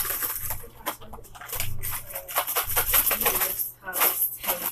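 Crinkly plastic snack packet of dried peaches rustling and crackling in irregular bursts as it is handled, with faint voices underneath.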